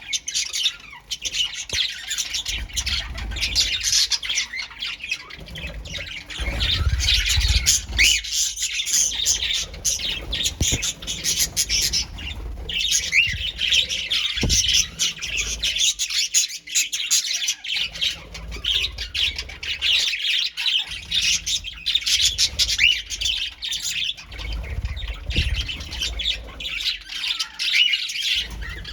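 A colony of small pet birds chirping and squawking together: many overlapping short calls, dense and unbroken apart from a few brief lulls.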